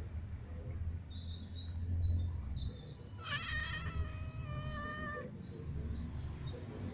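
A cat gives one long meow of about two seconds, starting about three seconds in, its pitch holding nearly level and dropping slightly at the end.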